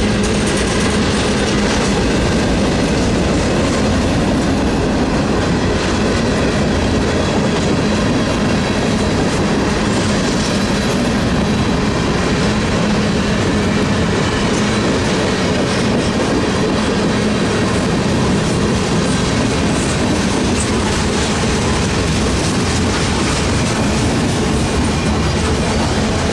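A train running on its rails: a steady, loud rumble of wheels and cars, with a faint low hum underneath.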